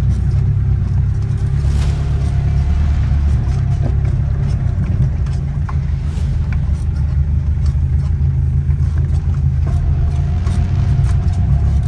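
Diesel engine running steadily under load with a deep rumble, with scattered short knocks over it.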